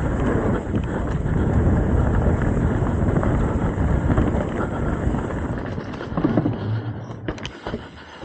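Wind buffeting the microphone and tyres rumbling over a dirt forest trail as a Trek Top Fuel 8 mountain bike descends, with scattered clicks and rattles from the bike. The noise drops away near the end.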